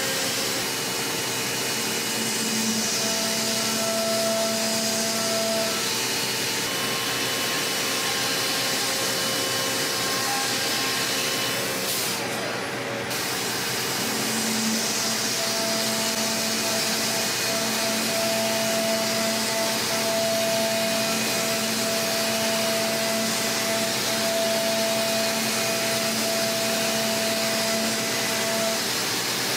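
A 5-axis CNC machining centre milling aluminium at high speed: a steady whir and hiss with a spindle whine. A louder pitched cutting tone comes in twice, for a few seconds near the start and then from about halfway almost to the end. A short sharp hiss falls just before halfway.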